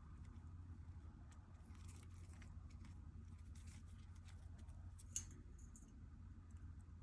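Cockatiel grinding its beak: faint, scattered scraping clicks, with one sharper click about five seconds in. Beak grinding is a sign that the bird is content.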